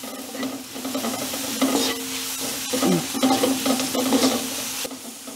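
Bamboo shoots and ginger sizzling in oil in a non-stick wok while being stir-fried, the utensil scraping and tapping against the pan in short strokes.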